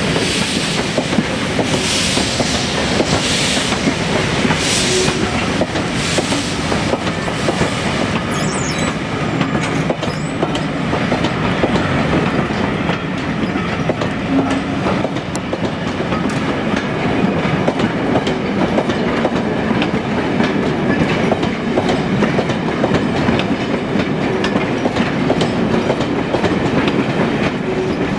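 Coaches of a steam-hauled train rolling out over pointwork, wheels clicking steadily over the rail joints. In the first few seconds the steam locomotive's exhaust beats are heard about a second apart as it works away.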